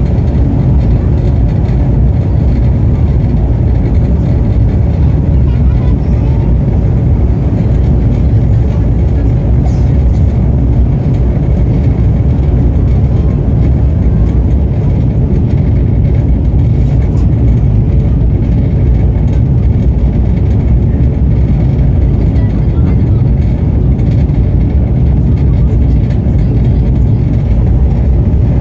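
Steady low rumble of a moving train.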